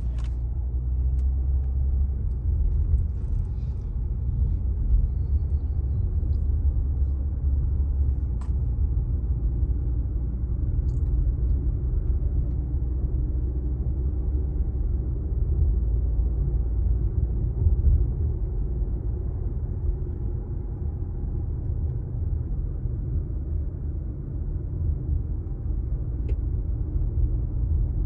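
Steady low rumble of a car's engine and tyres heard from inside the cabin while driving slowly along a street.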